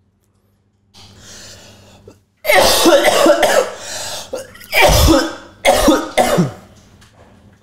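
A person coughing hard in a fit: a long coughing burst about two and a half seconds in, then three shorter coughs.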